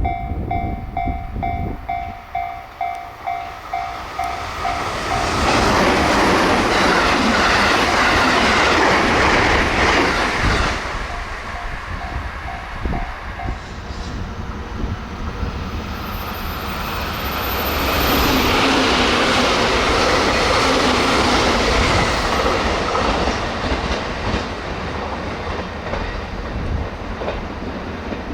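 A level-crossing warning bell rings about twice a second. Then a JR Kyushu 783 series limited express passes at high speed, at about 116 km/h, with a loud rush and clatter over the rail joints. The bell sounds briefly again around twelve seconds in, and then an 885 series limited express passes at about 110 km/h with the same rush and joint clatter.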